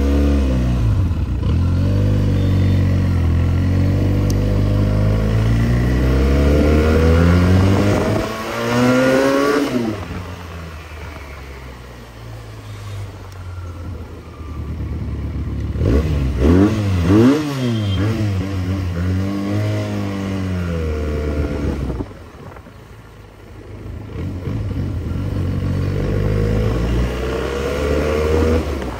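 Benelli 302S motorcycle's parallel-twin engine under way, its revs rising and falling as it pulls through the gears. There are quick throttle blips about sixteen seconds in, and the engine drops to a quieter run when the throttle is closed around ten and twenty-two seconds in.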